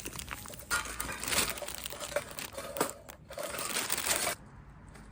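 Crinkling and rustling of something being handled, in rough bursts with a few small clicks, stopping sharply after about four seconds.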